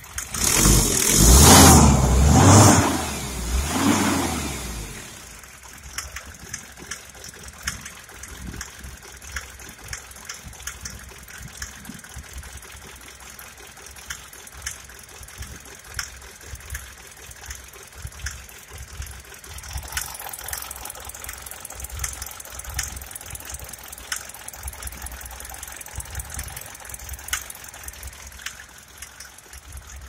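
Mercedes Sprinter 208D four-cylinder diesel engine revved by hand three times in the first few seconds, then idling with a steady, regular knock.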